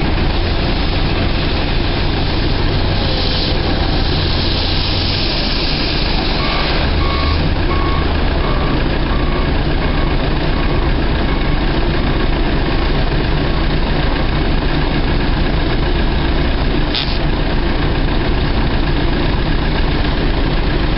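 Water truck's engine running steadily, loud and close. A run of short, evenly spaced beeps, about one a second, sounds over it for about five seconds a third of the way in.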